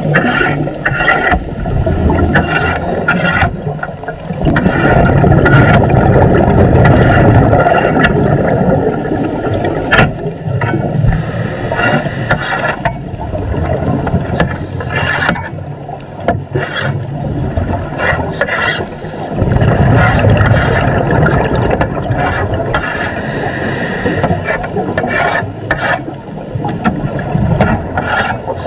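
Heard underwater: a long metal pole scraping and knocking against a submerged steel cage to strip off marine growth, with repeated rough scraping strokes and sharp knocks.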